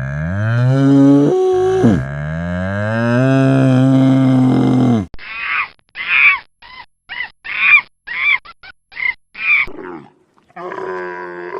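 Cow mooing: two long, low moos, the second held for about three seconds. Then a quick run of about ten short, higher calls from another animal, and a further animal call begins near the end.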